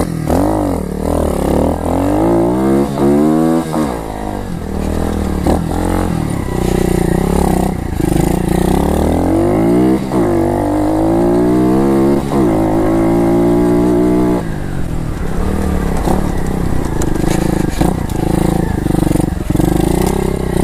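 Pit bike's small single-cylinder engine under hard riding, running strong. The revs climb in pitch and drop off twice as it shifts up, hold high for a couple of seconds, then ease and rise and fall.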